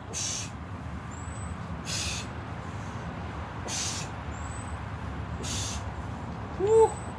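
A man's sharp, hissing breaths out, about one every two seconds, each with a sit-up crunch repetition. Near the end a short pitched sound rises and falls, louder than the breaths.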